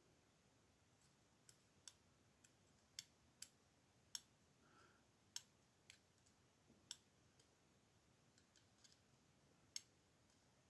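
Faint, sharp metal clicks, about a dozen at irregular intervals, from handling the emptied ASSA lock cylinder and its small parts.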